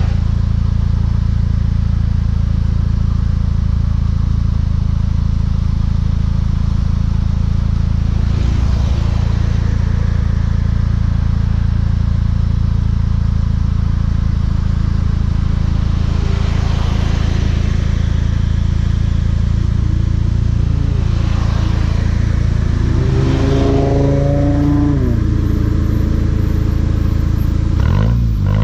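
Mk6 Volkswagen GTI's turbocharged four-cylinder running through a Beluga aftermarket exhaust while driving: a steady, loud low drone. In the second half the engine note rises and falls a few times as it revs and shifts.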